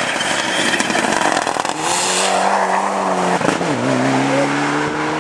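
Mitsubishi Lancer Evolution rally car's turbocharged four-cylinder engine at full throttle as the car drives past, with a brief hiss about two seconds in. About three and a half seconds in the engine note drops sharply at a gear change, then climbs again as the car accelerates away.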